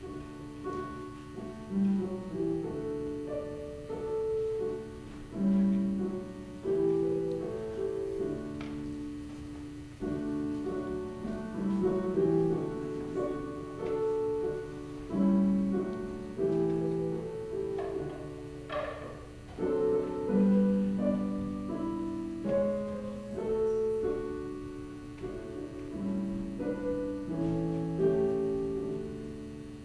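Solo piano playing a slow piece, each note or chord struck and left to fade.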